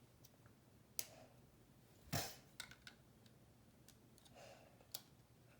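Plastic Lego bricks being handled: a few separate light clicks and knocks amid near silence, the loudest a little over two seconds in.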